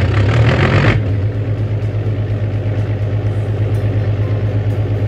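Engine idling sound effect: a steady low rumble with a fast even pulse, rougher and louder during the first second.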